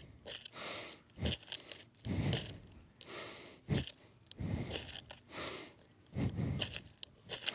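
Fire-starter rod struck repeatedly with a striker: a series of short scrapes, about one a second, with sharp clicks in between. The strikes are an attempt to light rain-damp tinder that is not catching.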